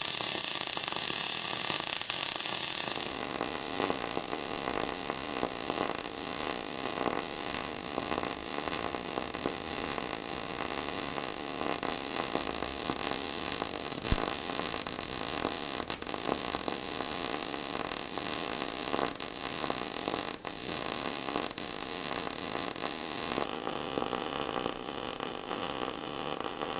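MIG/MAG welding arc on 3 mm steel sheet, run at low settings (62 A, 16.2 V, wire feed 4.0) in short-arc mode: a steady crackling buzz as a vertical-up weave bead is laid. There is a brief break in the crackle about 20 seconds in.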